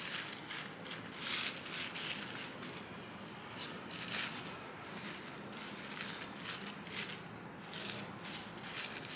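A thin stick scraping and spreading wet Jesmonite paste over a plastic sheet, the plastic crinkling. The strokes come as irregular short scratches, about one or two a second.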